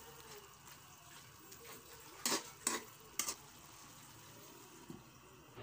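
Pork intestines sizzling steadily in a wok as their soy-and-vinegar adobo sauce cooks down, with a metal ladle knocking against the wok three times about two to three seconds in.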